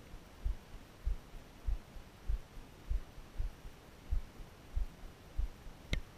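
Regular low thumps, about one and a half a second, in a slow heartbeat-like rhythm. A single short, sharp click comes near the end.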